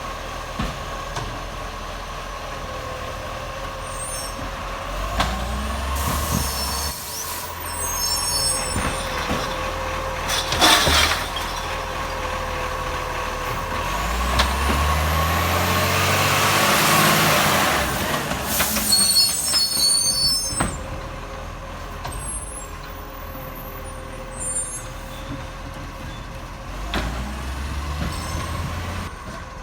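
Acco side-loader garbage truck running loud through a leaking exhaust, with a steady whine over the engine. About halfway through the engine revs rise for several seconds, and a loud air hiss peaks over it.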